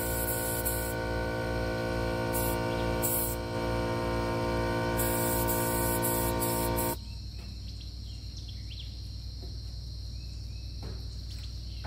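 A steady hum with many overtones while the paint is sprayed, stopping abruptly about seven seconds in. After that, crickets trill steadily, with a few bird chirps.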